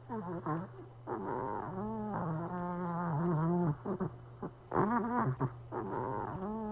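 Elderly Maltese dog whining and groaning in a series of drawn-out, wavering moans, a couple of them nearly two seconds long. These are the sounds of a dog the owner believes is unwell.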